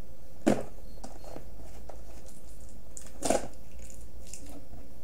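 Small cardboard product box being pried open by hand: two short, sharp cardboard snaps, one about half a second in and another about three seconds later, over a steady low hum.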